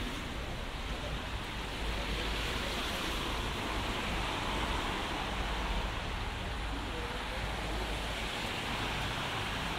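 Steady hiss of a rainy city street: rain and traffic on wet roads blending into one even wash of noise with a low rumble, no single sound standing out.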